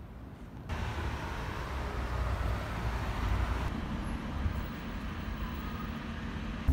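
Outdoor street ambience: a steady hum of distant road traffic, which jumps louder abruptly under a second in.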